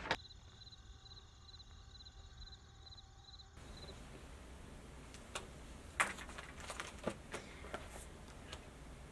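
Quiet room tone with a faint, regular high ticking for the first few seconds. From about five seconds in come soft clicks and knocks of a pen, a book and paper being handled on a table, the loudest about six seconds in.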